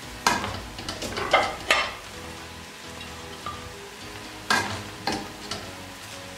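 A serving spoon scraping and knocking in a pot of cooked biryani as it is dished out. There is a quick run of short scrapes in the first two seconds, then three more about four and a half seconds in.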